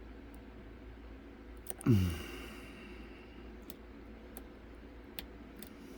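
Faint, scattered clicks of a flag pick and tension wrench working the pins inside an ISEO R11 dimple lock during picking. About two seconds in, a single short, louder sound falls in pitch.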